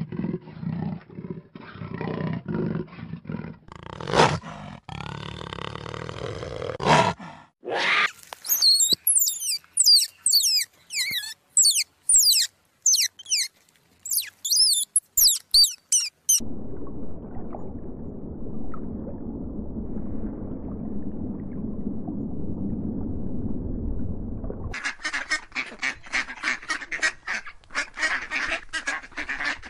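A run of different animal sounds: a cheetah's low, rough calls for the first seven seconds, then a burst of quick, high chirps, then a steady low rumble for about eight seconds, and rapid repeated Canada goose honking over the last five seconds.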